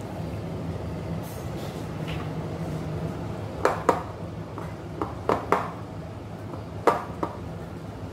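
Metal spoon clinking against the side of a ceramic bowl while stirring thick brownie batter: seven sharp knocks from about halfway in, in groups of two, three and two. A steady low hum runs underneath.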